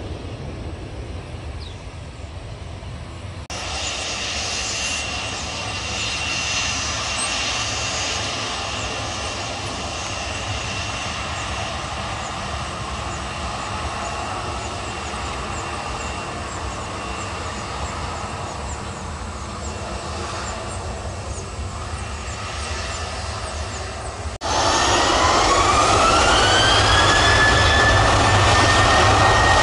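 Boeing 737-800's CFM56-7B jet engines running at taxi power with a steady high whine. Near the end they spool up for takeoff: the whine rises in pitch and levels off, and the sound grows much louder.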